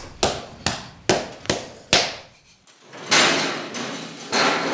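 Hand tool knocking on the sculpture: about six sharp hammer blows roughly half a second apart, each with a short ring. After a brief pause comes a longer scraping noise.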